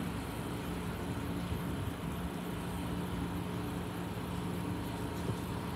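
Steady low background hum with an even hiss, unchanging throughout.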